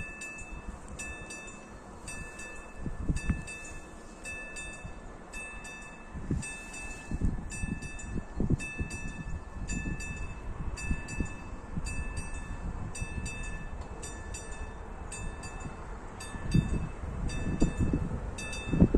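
The level-crossing warning bell of AŽD 71 signals rings in a steady, regular rhythm of about two strokes a second, warning that a train is approaching. Low gusts of wind buffet the microphone, heaviest near the end.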